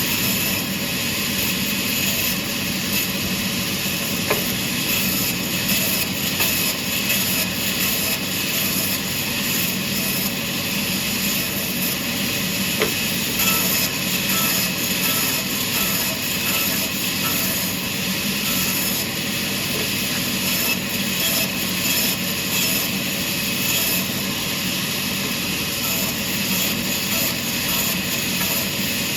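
Sawmill saw and machinery running steadily while cutting wood, an even, continuous noise with a steady hum underneath.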